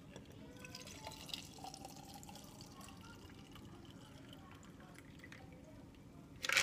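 A shaken berry drink is poured from a cocktail shaker through a spring bar strainer into a glass, with a faint trickling and dripping of liquid. There is a louder clatter right at the end.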